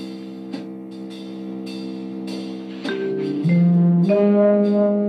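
Film score music: a held chord with a few struck accents, swelling louder about three seconds in as new sustained notes enter.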